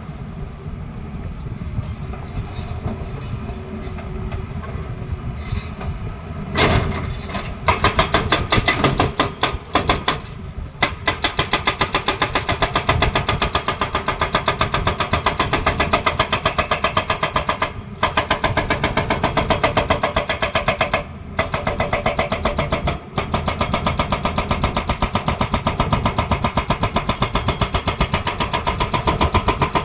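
Tata Hitachi excavator's diesel engine running, then from about seven seconds in its hydraulic breaker hammering with rapid, even blows, stopping briefly a few times.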